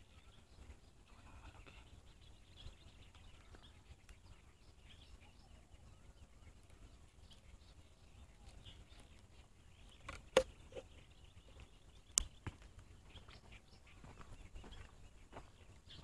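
Faint footsteps crunching on a dry dirt path with scattered twigs, with two sharp clicks about two seconds apart past the middle.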